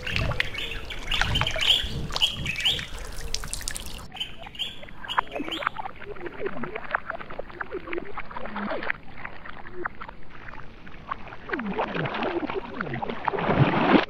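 White-throated bee-eaters giving short chirping calls, most in the first few seconds, over water splashing as the birds dip into the pool.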